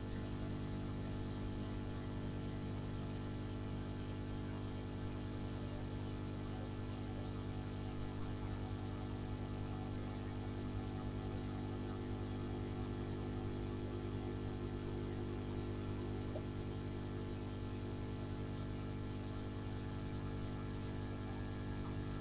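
Steady low electrical hum with a faint hiss, unchanging throughout, with no other sounds on top.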